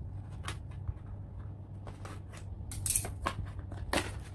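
Scissors snipping and scraping as a cardboard box is cut open, a series of irregular sharp snips with cardboard rustling, the loudest about three seconds in.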